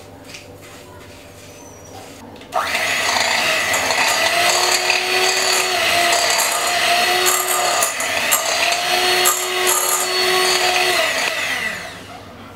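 Electric hand mixer switched on about two and a half seconds in, running steadily with a motor whine as its beaters cream butter and sugar in a glass bowl, then winding down near the end. A few faint knocks of a spatula in the bowl come before it.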